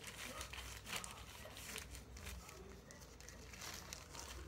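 Faint rustling of cloth as a garment is handled and put on, in a few short bursts of rustle.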